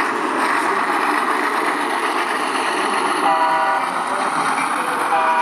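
Model diesel locomotive's onboard sound speaker sounding a chord horn: a short blast a little over three seconds in and another starting near the end, over a steady background din.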